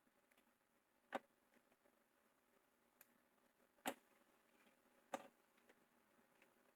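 Near silence broken by three small, sharp clicks: about a second in, just before four seconds, and about a second after that, with a fainter tick in between.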